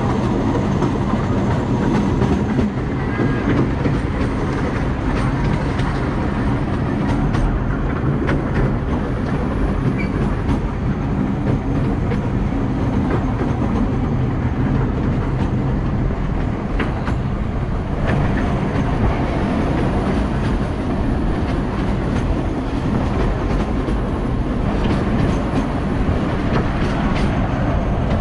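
Liliputbahn narrow-gauge park train running steadily, heard from an open passenger car: wheels rolling on the rails with faint scattered clicks.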